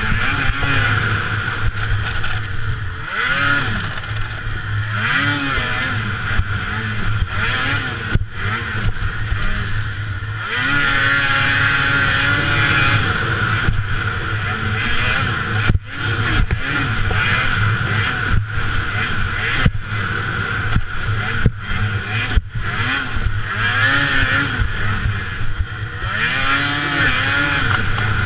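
Racing snowmobile engine revving up and down over and over as the throttle is worked, heard from the rider's seat with wind rushing over the microphone. In the second half the sound dips sharply for an instant several times.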